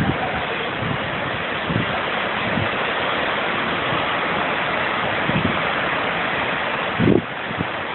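Cloudburst rain and rushing water making a steady, dense hiss, with a few short low thumps and a louder thump about seven seconds in.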